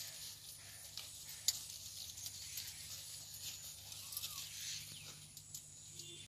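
Maize plants rustling and crackling as stalks and leaves are handled and brushed against, a low steady hiss with scattered light snaps, the loudest about a second and a half in. The sound cuts off suddenly near the end.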